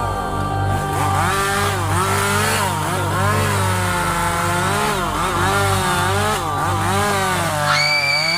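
Chainsaw revving up and down over and over, its pitch rising and falling about once a second. A high steady tone joins near the end.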